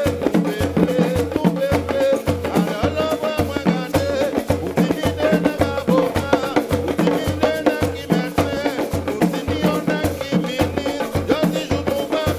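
Live Guadeloupean mas drumming by a large percussion ensemble: big skin hand drums (tambours) beat an even low pulse, with calabash shakers and small percussion rattling on top and voices singing over it.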